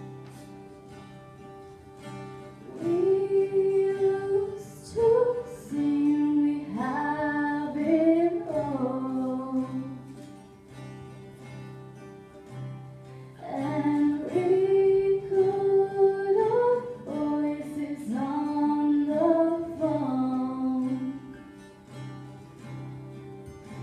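Acoustic guitar playing a steady accompaniment while girls sing a melody into microphones. The singing comes in two long phrases, about 3 and 13 seconds in, with the guitar alone before, between and after them.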